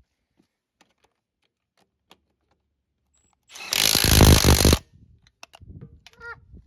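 A cordless impact wrench runs in one loud burst of a little over a second, starting about three and a half seconds in, spinning off a motor mount bolt. Light clicks and clinks of handled parts come before and after.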